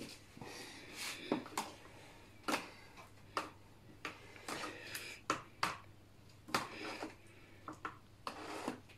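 Two metal spoons clicking and scraping against a plastic tub while croquettes are rolled in beaten egg: a string of light, irregular taps and knocks.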